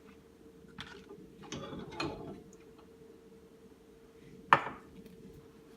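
A microwave bowl and its cover being handled as the cover comes off and the bowl is brought out: light clicks and clatter about a second in, then one sharp knock a little after four seconds. A faint steady hum runs underneath.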